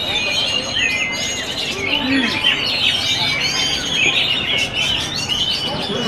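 Caged oriental magpie-robins (kacer) singing together, a dense, overlapping chorus of quick whistles, chirps and trills with no pause.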